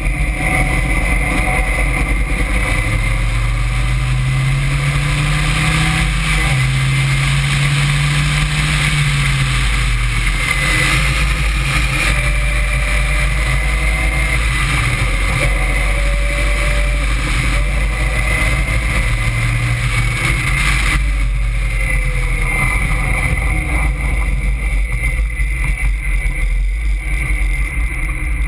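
Caterham Seven's engine heard onboard at racing speed, its revs climbing and dropping back several times through the gears. Heavy wind noise over the open cockpit runs underneath.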